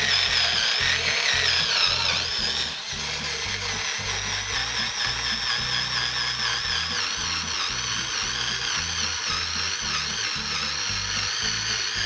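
Xiaomi Mi Cordless Screwdriver's small motor running under load with a high, wavering whine, as a self-drilling metal screw grinds its way into 2 mm sheet metal. The whine eases slightly about three seconds in. Background music with a steady beat plays underneath.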